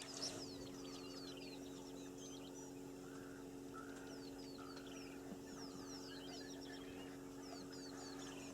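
Wild birds calling, faint: many short, high whistles that slide downward, scattered through, over a steady low hum.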